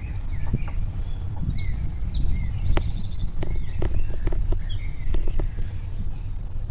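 Songbirds singing, with fast high trills and short chirps coming one after another. A steady low rumble runs underneath, with a few sharp clicks in the middle.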